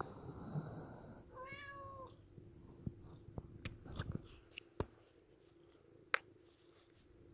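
Domestic tabby cat giving one short meow about a second and a half in, followed by a scatter of sharp clicks and taps, the loudest near the end.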